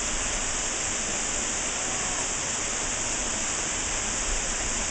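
Waterfall: falling water making a steady, even rushing hiss, strongest in the high range.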